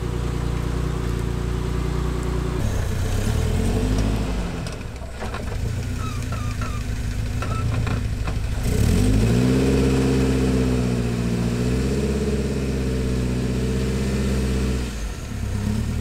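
Off-road vehicle engine running at low revs, then revved up under throttle: a brief rise about three seconds in, then a higher, steady pull from about nine seconds in that drops back near the end.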